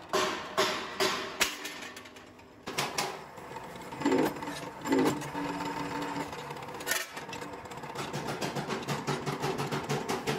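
Press brake running as steel sheet is bent, with a rhythmic mechanical clatter, a few heavier knocks in the middle, and the clatter turning faster and denser near the end.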